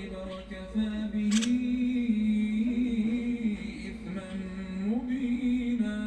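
A man's voice chanting in long held notes that rise and fall slowly in pitch, with a sharp click about a second and a half in.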